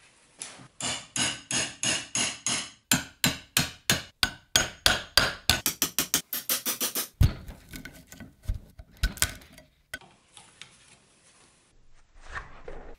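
Claw hammer striking the handle of a screwdriver to chisel the old wooden handle remnant out of a rusted axe head's eye. The strikes ring, about two a second at first and then quickening to three or four a second. After about seven seconds they give way to scattered lighter knocks and clicks as the wood is worked loose.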